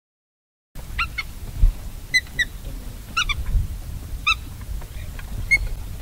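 Black-tailed godwit calling: a series of short call notes, often two in quick succession, repeated every second or so, starting just under a second in, over a low background rumble.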